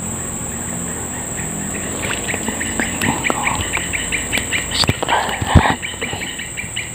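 Insects chirping in a steady rhythm, about four short chirps a second, over a high steady insect drone. A few sharp clicks and small splashes come in the middle, the loudest a thump about five and a half seconds in, as a small fish is taken from the water on a light rod.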